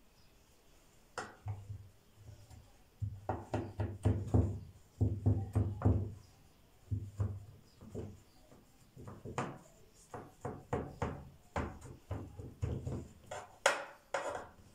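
A kitchen knife knocking and thudding against the bottom of an aluminium baking tray of layered phyllo, in irregular strokes with short pauses in between.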